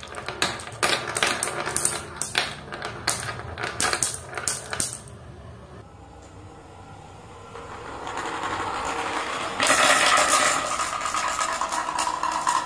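Marbles clicking and clacking in a quick series as they are dropped onto and run along a plastic marble-run track. This gives way to the steady rolling rattle of many marbles running down a wooden track and knocking against its blocks, louder for the last few seconds.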